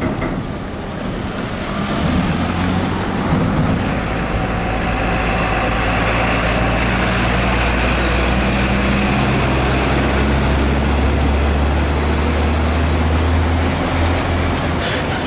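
Diesel engine of an Isuzu Giga tractor unit hauling a shipping container trailer, running steadily as the truck drives past, with tyre and road noise. The engine note grows louder about two seconds in and eases off near the end.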